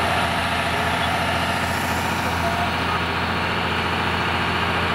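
Zoomlion concrete mixer truck's diesel engine running steadily while the truck discharges concrete.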